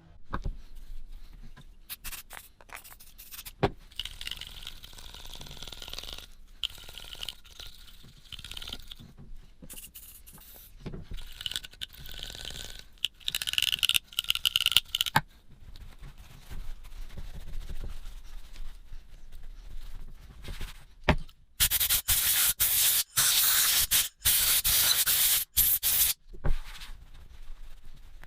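Abrasive scraping and rubbing on metal, in short stop-start strokes, as rust and grime are cleaned off a pair of old steel pliers. The strokes get louder and harsher, in choppy bursts, near the end.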